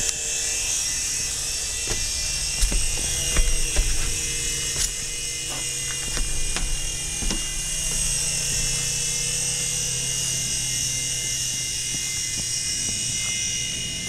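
Small iOS-controlled toy helicopter in flight: its electric rotor motors give a steady high-pitched whine. A few sharp clicks or knocks come in the first half.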